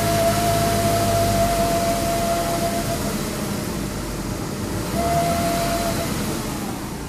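A 2002 Lexus GS300 giving off a steady, high, annoying whine over the car's running noise. The whine holds for about three seconds, drops out, and comes back briefly around five seconds in.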